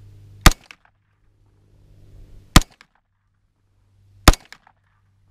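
Three single 9mm shots from a KE Arms AR9 pistol, about two seconds apart, each a sharp crack with a brief echo.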